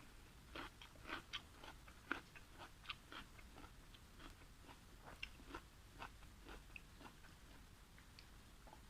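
Faint close-up chewing: soft, irregular wet mouth clicks and smacks of a person eating, busiest in the first few seconds, then thinning out.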